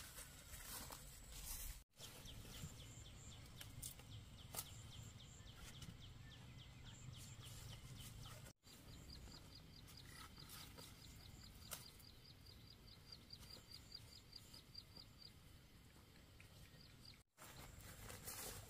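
Faint rural outdoor ambience: a rapid series of high, thin chirps repeating several times a second from a small creature in the field, over a low rumble, with a few light clicks from handling plants.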